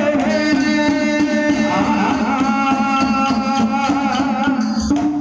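Villupattu (Tamil bow-song) ensemble music: voices singing over a held drone tone, with regular percussion strikes. The music stops at the very end.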